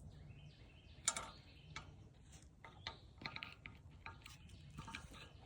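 Faint scattered clicks and ticks, the sharpest about a second in, with a few faint high chirps.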